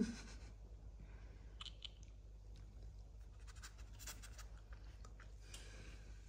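Faint scratching and soft clicking as serval and caracal kittens shift about and lick on a fabric sofa, over a low steady hum, after one brief low sound at the very start.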